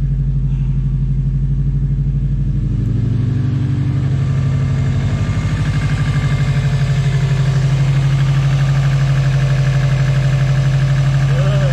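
Freshly swapped JDM EJ205 turbocharged 2.0 L flat-four (boxer) engine idling steadily in a Subaru WRX, with an even, rapid pulse.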